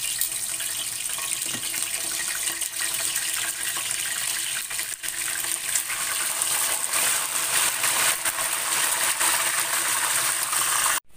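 Marinated split milkfish frying in hot oil: a steady, loud sizzle with crackling spatter, cutting off suddenly just before the end.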